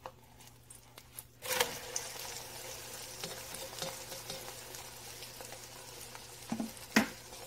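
Beaten egg frying in hot oil in a pan. A soft sizzle grows louder about one and a half seconds in, with a knock as the egg is turned over with a spatula. A sharp utensil tap comes near the end.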